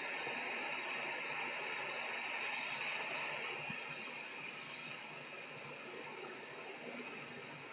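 Hot air rework station blowing a steady hiss of hot air onto a small surface-mount capacitor on a laptop motherboard to desolder it. The hiss eases a little about halfway through.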